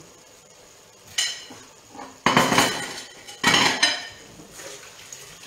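Kitchen crockery and cutlery being handled: a ceramic plate and a knife clink once about a second in, then clatter twice more loudly as they are set down on the counter.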